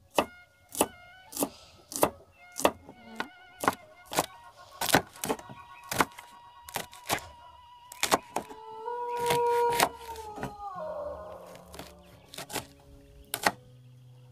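Kitchen knife slicing shallots on a cutting board: a long run of sharp knocks, roughly one every half to two-thirds of a second, over soft background music.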